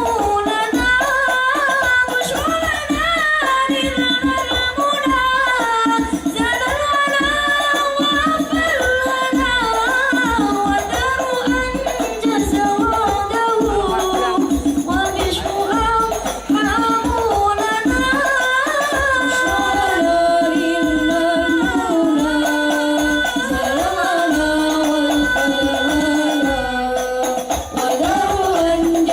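Al-Banjari ensemble performing: voices singing a sholawat melody over a steady rhythm of rebana frame drums.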